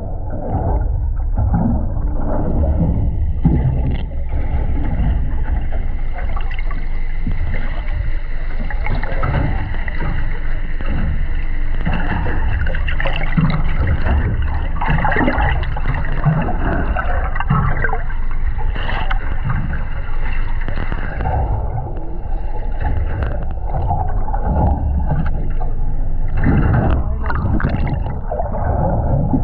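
Underwater recording: continuous muffled rumbling and gurgling of water against the camera housing, with a steady faint high whine above it.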